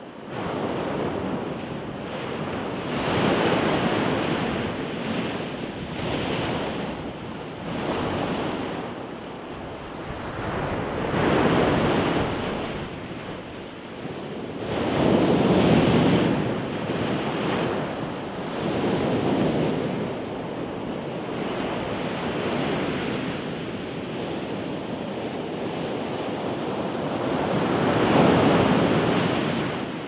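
Pacific Ocean surf breaking and washing onto the shore, a rushing noise that swells and fades every few seconds, with the biggest surges about halfway through and near the end.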